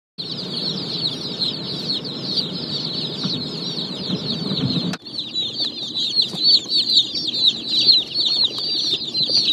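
A crowd of broiler chicks peeping nonstop, many short, high, falling peeps overlapping. A low rumble runs under the first half and stops abruptly about halfway.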